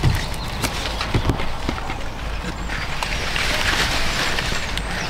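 Corn leaves and stalks rustling and crackling as hands handle the plants and pull silk from the ears, with scattered light knocks; the rustling gets denser about three seconds in.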